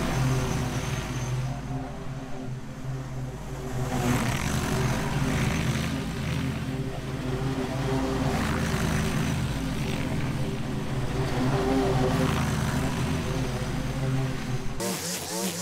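Toro zero-turn riding mower running steadily with its blades engaged, cutting thick overgrown grass. The sound dips for a couple of seconds early on as the mower pulls away, then swells again as it comes back close. In the last second it gives way abruptly to a different, wavering motor sound.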